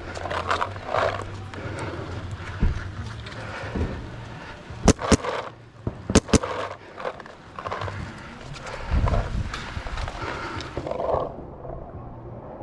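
Paintball markers firing during play, with scattered pops and knocks throughout and four sharp, loud shots in two quick pairs about five and six seconds in.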